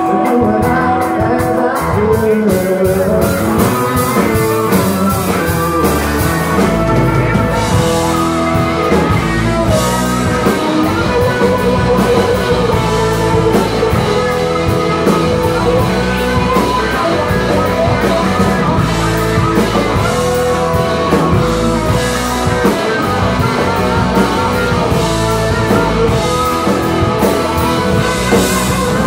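Live rock band playing: electric guitars, bass guitar and drum kit. The sound gets fuller about seven seconds in, with more low end and cymbal-like hiss.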